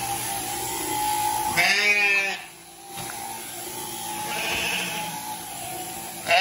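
A sheep bleats once, a quavering bleat about two seconds in, with another beginning just at the end, over the steady drone of electric sheep-shearing clippers running as a ewe is shorn.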